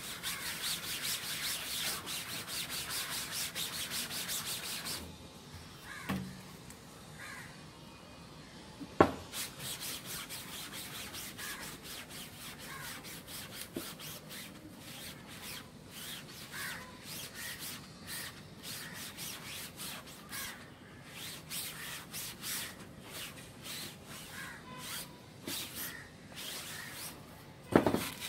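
A cloth rag scrubbed back and forth over the mesh of a wooden screen printing frame, wiping ink out of the screen. The strokes are fast and dense for the first five seconds, then after a lull and one sharp knock about nine seconds in they go on as steady, evenly repeated strokes.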